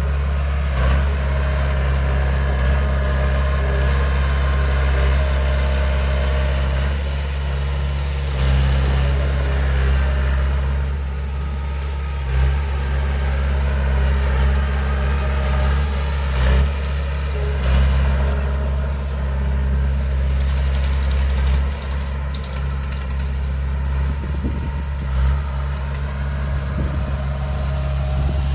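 Heavy diesel engine of earthmoving machinery running steadily with a deep, even drone, with a few short knocks at intervals.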